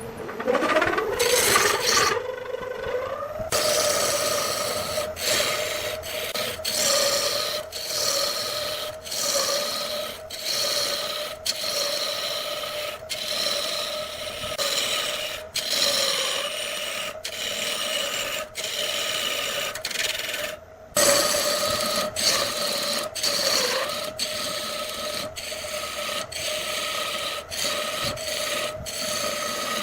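Wood lathe spinning up with a rising whine, then running at a steady pitch while a turning tool scrapes and shaves the spinning wood, the cutting noise breaking off briefly many times.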